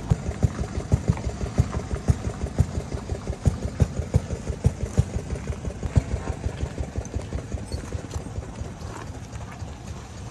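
Old hopper-cooled single-cylinder stationary engine running at a slow, steady putt-putt of exhaust beats, about three a second. The beats grow fainter near the end.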